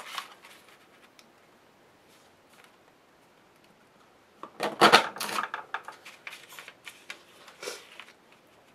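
Martha Stewart heart border punch pressed down through a sheet of vellum about halfway in, a sharp plastic clack with a cluster of clicks, followed by rustling and small clicks as the vellum is slid along and lined up in the punch.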